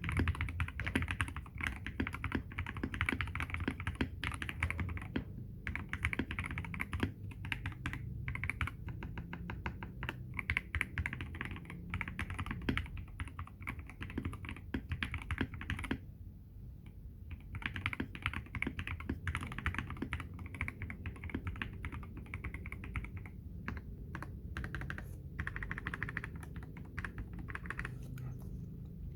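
Fast continuous typing on a Feker IK75 V2 gasket-mount 75% mechanical keyboard fitted with lubed Everglide Water King linear switches, a polycarbonate plate and PBT XDA keycaps. The keystrokes break off briefly about five seconds in and for over a second around the middle.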